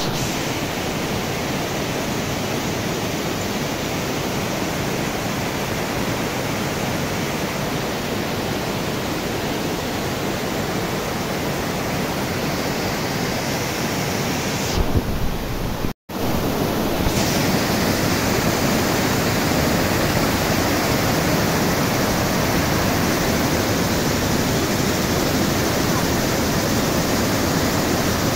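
White water of a mountain stream cascading over rocks down a narrow channel, a steady loud rush. The sound drops out briefly about halfway through, then carries on a little louder.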